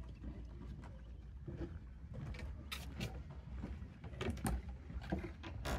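Footsteps on a wooden plank boardwalk: irregular knocks of shoes on the boards over a steady low rumble, with a louder knock at the very end.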